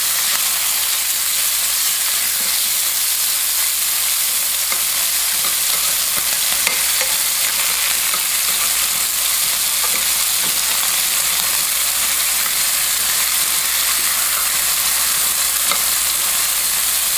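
Chicken cutlets searing in hot olive oil in a stainless steel sauté pan: a steady sizzle. A few faint clicks come from the metal tongs moving the pieces.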